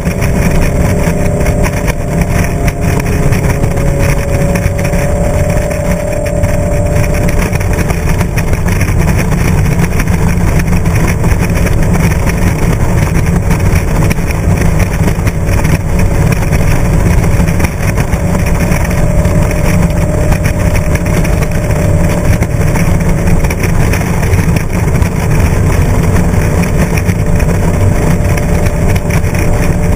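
Loud, steady rush of wind and road noise on a vehicle-mounted camera at highway speed, with an engine drone underneath that shifts slightly in pitch in the first several seconds.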